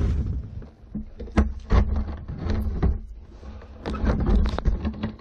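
Irregular knocks and clunks of paramotor gear being carried and handled, over a low rumble.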